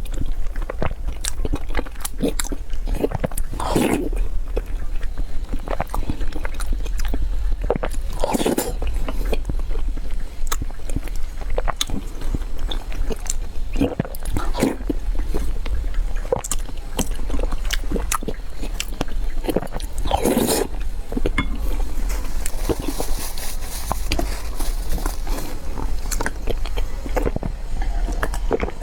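Close-miked eating sounds: biting and chewing, with frequent small crunches and mouth clicks and a few louder wet smacks, over a steady low hum.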